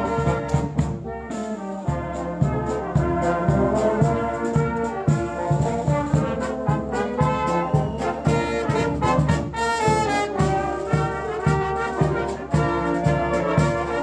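A brass band of trumpets, a sousaphone and other brass playing a tune together, with a steady drum beat under it.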